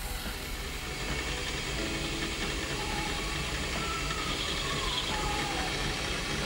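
Small milling machine running steadily as a drill and then a countersink cut into steel flat-stock clamp jaws.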